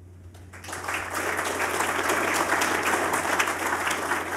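Audience applauding after a lecture ends, starting about half a second in and carrying on steadily.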